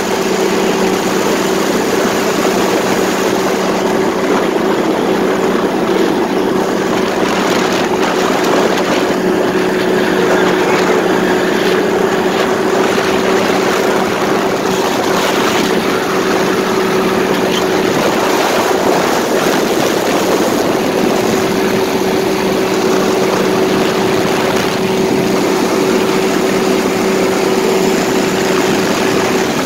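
Paramotor engine and propeller running at a steady cruise: a constant drone that holds one pitch throughout.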